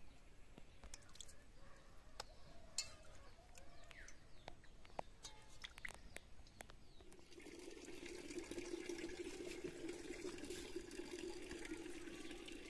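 Faint water sloshing and dripping with small clicks as raw tilapia are rinsed by hand in a metal bowl of water. About seven seconds in, a steady low hum comes in.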